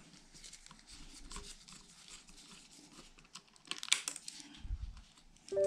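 Small screwdriver scratching and clicking faintly against a laptop's plastic screen bezel while prying out the rubber screw covers, with a few sharper clicks about four seconds in. Music with steady piano-like tones starts right at the end.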